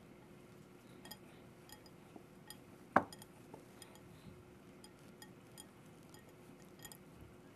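Hands tossing buttered breadcrumbs in a glass bowl: faint, scattered clicks of fingers against the glass, with one louder knock about three seconds in.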